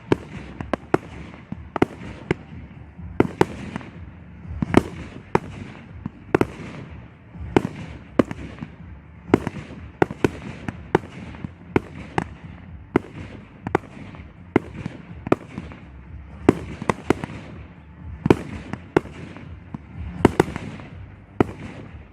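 Fireworks display: a rapid, irregular run of sharp bangs from aerial shells, about two or three a second, each trailing off in a short echo, over a steady low rumble.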